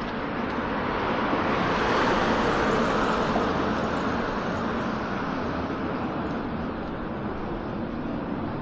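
Street traffic: a passing vehicle whose noise swells to a peak about two to three seconds in, then fades slowly into the steady traffic hum.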